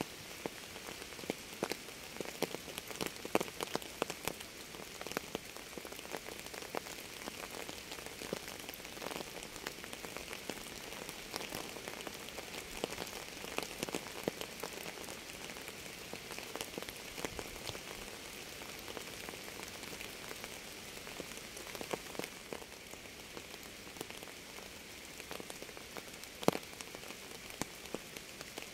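Steady rain falling, with many single drops heard as sharp irregular ticks over an even hiss.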